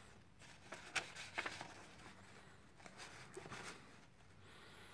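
Faint rustling of a paper instruction sheet being handled, a few soft crinkles.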